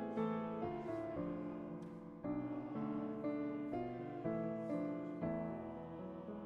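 Piano playing slow, sustained chords, each struck and then fading, with the harmony changing about once a second.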